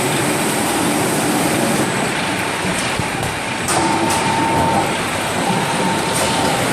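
Rotary veneer peeling lathe running with a loud, steady mechanical noise. A little past halfway, a high squealing tone sets in and comes and goes, with a few sharp knocks.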